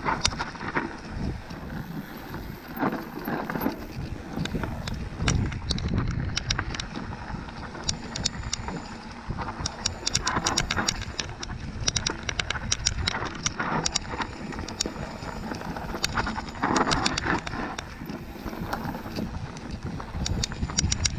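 A bicycle being ridden, with wind buffeting the microphone as a steady low rumble and frequent sharp clicks and rattles from the bike.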